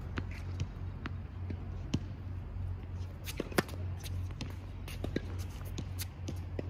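Tennis ball bouncing on a hard court and being struck by racquets during play: a series of sharp pops and knocks, the loudest crack about three and a half seconds in. A steady low hum runs underneath.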